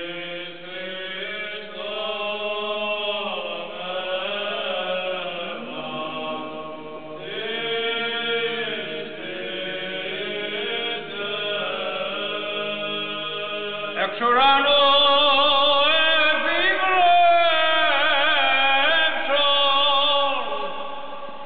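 Sacred chant: voices sing a slow, gliding melody over a steady held low tone. About two-thirds of the way through it changes abruptly to a louder passage.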